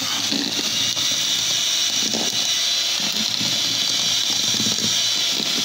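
Electric hand mixer running at a steady speed, its twin wire beaters whipping eggs and sugar into a thick foam for sponge cake batter.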